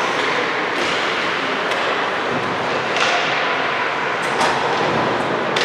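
Basketball game sounds in a gymnasium: a few sharp thuds of the ball and play on the court over a steady background din of the gym.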